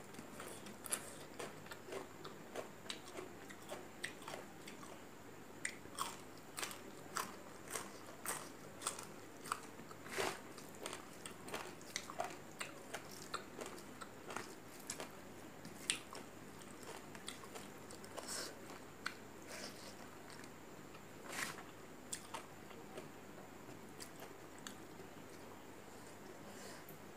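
Close-miked chewing of a mouthful of rice and vegetables: many short, wet, sharp smacks and clicks of the mouth, coming less often over the last few seconds.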